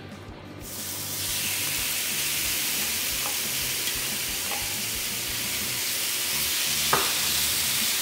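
Marinated chicken chunks dropped into hot olive oil in a nonstick pan and frying: the sizzle starts about a second in and stays steady, with a few light taps of a spatula.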